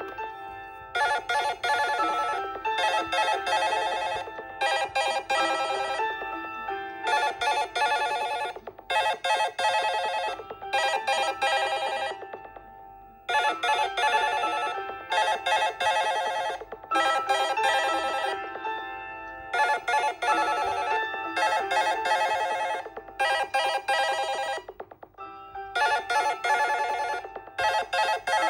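Smartphone alarm tone ringing: short bursts of a rapid, fluttering electronic ring in a pattern that repeats about every six and a half seconds.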